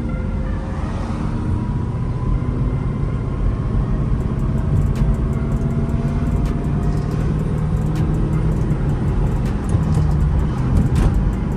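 Ford Mustang GT's 4.6-litre three-valve V8, fitted with an aftermarket exhaust, running while the car is driven. Its note rises slowly as it pulls through a gear. A few sharp clicks come about five seconds in and again near the end.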